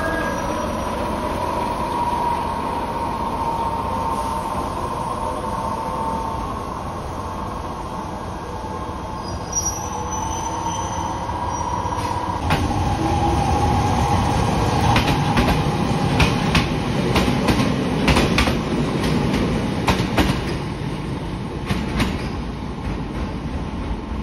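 Toyama Chiho Railway electric train running slowly through the station, with a steady whine and a brief high wheel squeal. About halfway in it turns louder: rumble and a quick run of sharp clicks as wheels cross rail joints and points.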